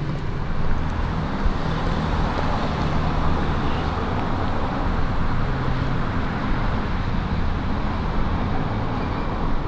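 Steady road traffic noise, a continuous deep hum with hiss on top and no distinct events.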